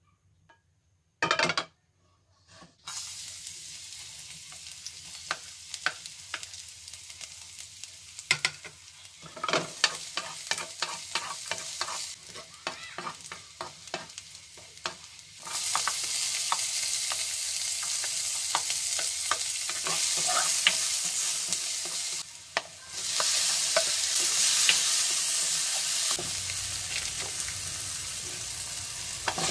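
Minced garlic sizzling in hot oil in a frying pan while a spatula stirs it, clicking and scraping against the pan. About halfway through the sizzle turns much louder as chopped onion and tomato fry with it.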